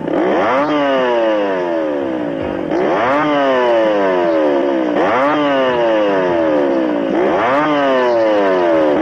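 Whoopee cushion letting out its buzzy fart sound, four times at even spacing: each jumps up in pitch, then falls slowly over about two seconds.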